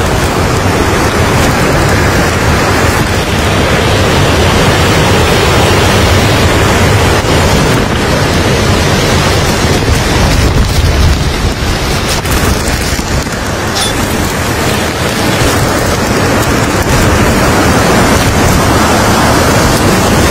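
Storm-force cyclone wind with heavy driving rain: a loud, steady rush of noise, dipping slightly just past the middle.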